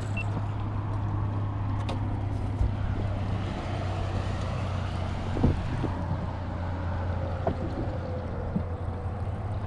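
A steady low motor hum with a few light knocks over it.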